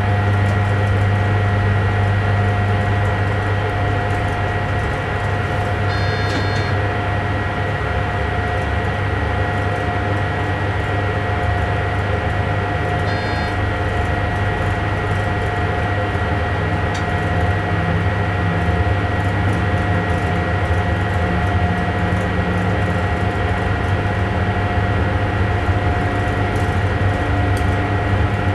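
Inside a train's driving cab at steady running speed: a steady low hum with a constant whine from the drive equipment. Two short high beeps sound about six and thirteen seconds in.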